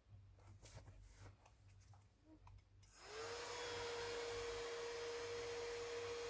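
Small handheld battery fan switched on about three seconds in: its motor spins up within a fraction of a second, its pitch rising, then settles into a steady whir with a hum, blowing air to dry serum on the face faster.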